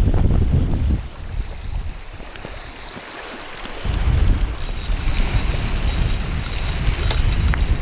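Wind buffeting the microphone, gusting hard at first and easing for a couple of seconds before picking up again. From about halfway, a crackling rustle of something handled right against the microphone.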